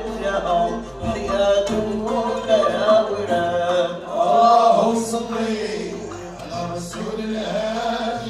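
Moroccan malhun ensemble playing, with violins bowed upright on the knee, a cello and an oud, and male voices singing over the strings.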